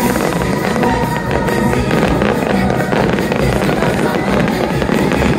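Loud show music with fireworks bursting and crackling over it.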